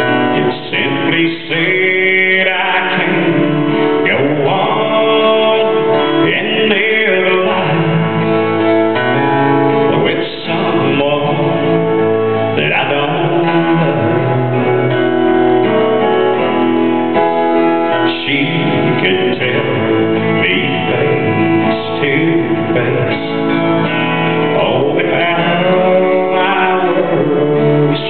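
A man singing a song to his own acoustic guitar accompaniment.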